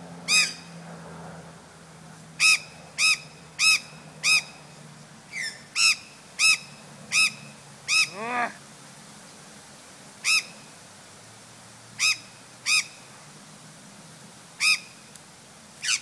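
Australian magpie calling: about fifteen short, identical squawks at uneven intervals, and one longer call that drops steeply in pitch about eight seconds in.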